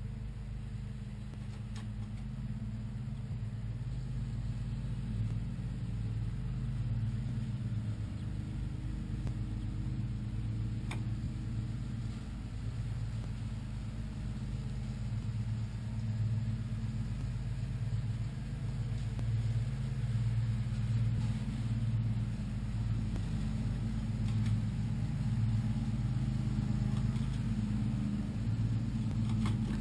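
A steady low mechanical rumble that slowly grows louder, with a few faint ticks.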